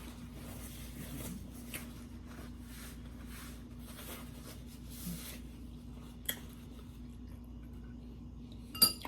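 A person chewing food close to the microphone, soft repeated crunching and mouth sounds over a faint steady hum, with a sharp clink near the end.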